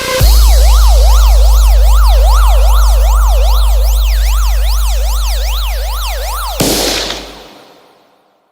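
Electronic DJ sound-check effect: a very loud, steady deep sub-bass tone under a synthetic siren wailing up and down about twice a second. Near the end a burst of hiss cuts in and the whole sound dies away.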